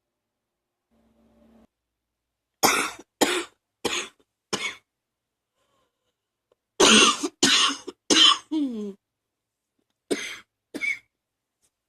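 A person coughing in fits: four coughs a few seconds in, a louder run of four about seven seconds in, the last sliding down in pitch, then two more near the end. A lingering cough that the uploader puts down to allergies.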